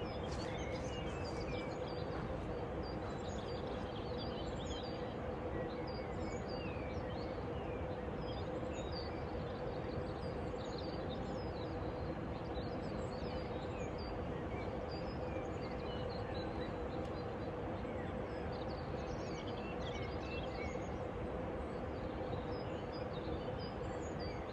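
Small birds chirping and twittering in many short calls throughout, over a steady, even background rush and a faint steady hum.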